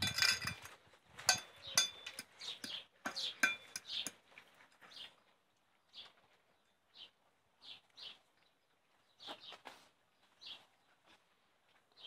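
Steel food bowls clinking and rattling in a metal feeding rack as a litter of German shepherd puppies eat, busiest over the first four seconds. After that come short, high chirps, about one a second.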